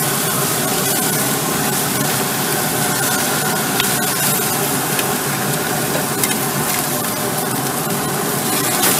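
Chicken thighs sizzling over the fire on the grates of a Pit Boss smoker-grill, a steady hiss with a faint steady hum underneath and a few light clicks of the tongs against the grates.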